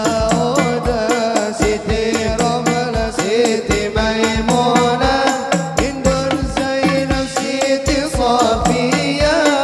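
A male vocalist sings an Islamic sholawat in a melismatic style through a microphone and PA. Hadroh hand drums beat a steady rhythm under the voice.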